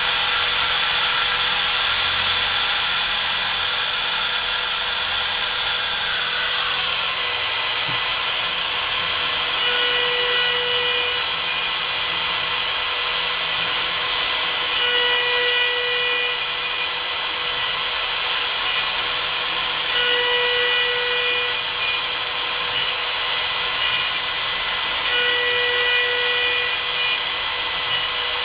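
CNC router spindle running with its bit cutting a Lexan sheet, a steady whine. About six seconds in the tone drops, and a stronger tone swells for about a second roughly every five seconds as the cut repeats.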